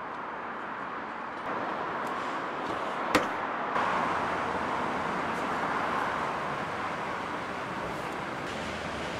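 Steady street and traffic noise, with one sharp click about three seconds in as a car door is unlatched and opened.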